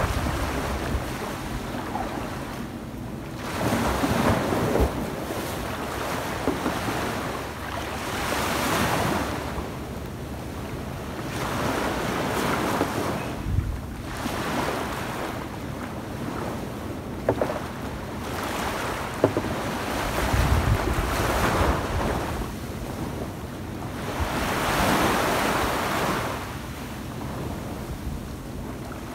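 Small waves breaking at the shore and washing up a sandy beach, swelling and fading about every four seconds.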